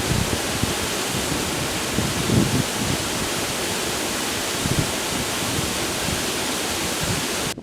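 Steady rushing of a river's flowing water, an even hiss with no distinct events, cutting off abruptly right at the end.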